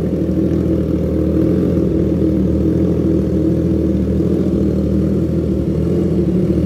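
Triumph Trident 660's three-cylinder engine idling steadily, freshly started, through an aftermarket full exhaust with a resonator and a short perforated tailpipe. It gives a deep rumble that is not very loud.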